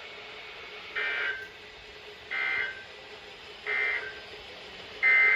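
Three short bursts of EAS SAME digital data tones, a raspy two-tone data squawk, about a second and a half apart: the end-of-message code closing an Emergency Alert System broadcast. A longer burst of the same data tones begins near the end.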